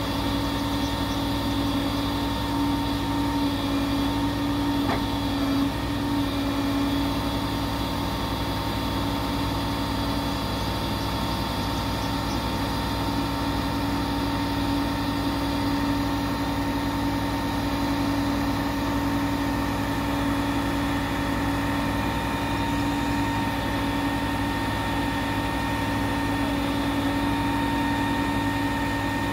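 Grapple truck's engine running steadily, a continuous droning hum, while its grapple crane lifts a bridge timber.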